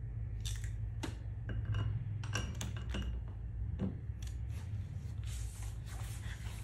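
Metal clicks and clinks of a hand ratchet and socket being worked on a wheel lug nut to loosen it: about a dozen sharp, irregular clicks.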